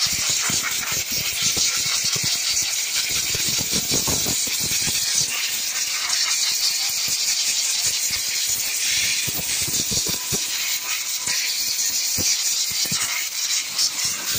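Compressed air blowing from an air hose over a freshly washed car battery to dry it: a loud, steady hiss with irregular rattling, densest in the first few seconds.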